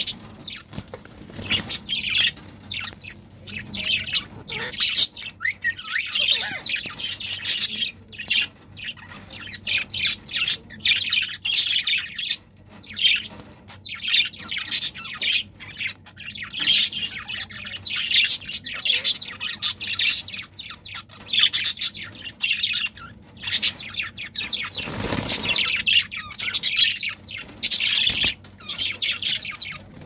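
Budgerigars chirping and chattering without a break, a dense stream of quick, bright calls. About twenty-five seconds in there is one brief louder noise.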